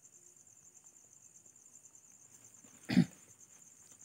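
Crickets chirping steadily in the background, a fast pulsing high trill, with one short loud noise about three seconds in.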